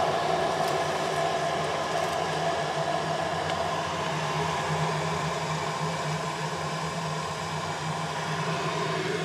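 Hot water poured from a kettle in a thin stream into a glass mug of loose-leaf tea, a steady splashing that runs until the mug is full.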